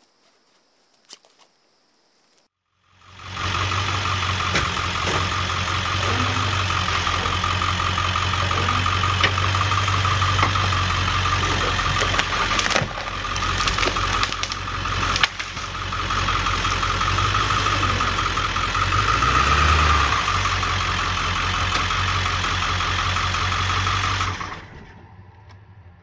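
Truck engine running steadily with a deep hum, starting abruptly about three seconds in and briefly revving near twenty seconds in. A few sharp cracks come through about halfway, and the sound fades out shortly before the end.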